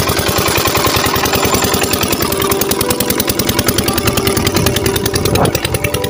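Small single-cylinder engine of an irrigation water pump set running steadily, a fast, even knocking beat. It drops a little in level about five and a half seconds in.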